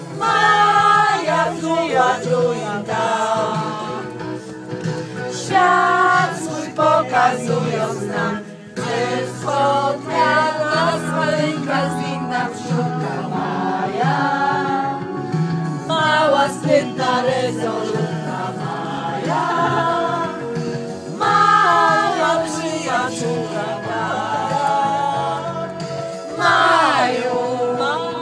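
A group of women singing beer-drinking ditties together inside a bus, a rowdy sing-along that runs on without a break.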